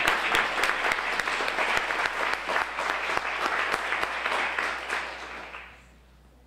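Audience applauding at the end of a talk, a dense clapping that fades away near the end.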